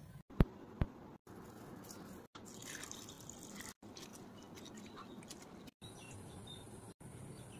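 Faint splashing of water as flattened rice (poha) is rinsed by hand in a steel bowl, broken into short stretches by abrupt silent cuts. Two sharp clicks come about half a second in.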